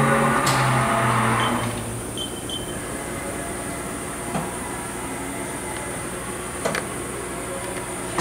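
Haas VF-5 vertical machining center's axis drives whining as the axes are jogged, stopping about two seconds in. The machine then hums steadily, with a few short high beeps and light clicks.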